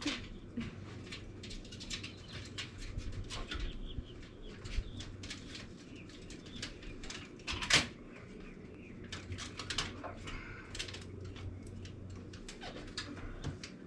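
Scattered light clicks and knocks over a steady low hum.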